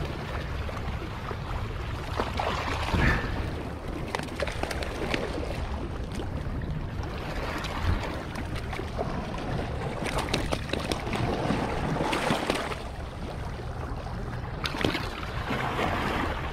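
Sea water washing and sloshing against a rock shelf, swelling and easing, with scattered small knocks and clicks of handling close by.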